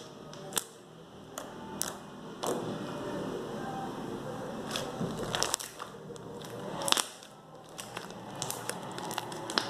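Glossy slime being squeezed and poked by hand, sticky squishing with sharp irregular clicks and small pops scattered through.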